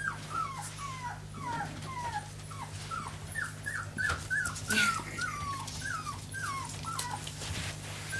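Four-week-old American Staffordshire terrier puppy whimpering over and over in rough play with an adult dog, short high falling squeals about two a second. A steady low hum runs underneath, and there is a sharp knock about halfway through.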